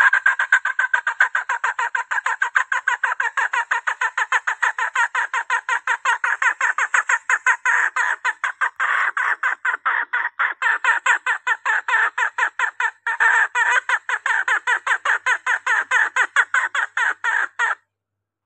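Lure recording of a female green junglefowl calling to draw in males: a fast, unbroken run of short clucking squawks, about five a second. It cuts off suddenly near the end.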